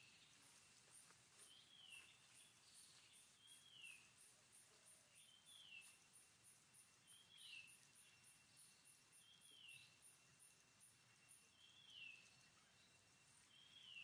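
Faint outdoor ambience: a bird repeating a short, falling call about every two seconds, over a fast, high-pitched insect pulsing that stops a couple of seconds before the end.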